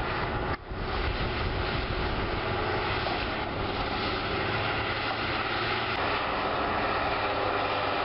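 Diesel engines of an excavator and a crawler bulldozer running steadily under load as the excavator pulls the bogged-down bulldozer out of deep mud, with a brief dip in the sound about half a second in.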